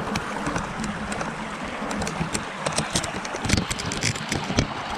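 A small stream running under a bridge, an even rushing of water, with a scatter of sharp clicks and rustles from close handling, thickest in the middle.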